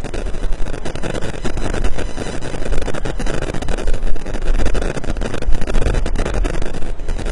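Loud, steady rumbling noise, heaviest in the low end, with no distinct events.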